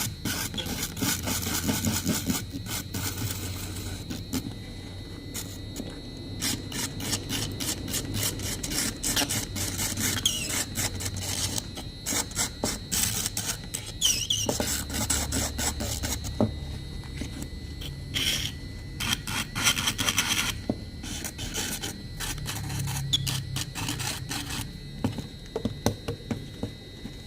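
Agarwood (Aquilaria malaccensis) being carved by hand, with a carving tool making many short, irregular scraping and rasping strokes on the wood. A few faint steady high tones and a low hum run underneath.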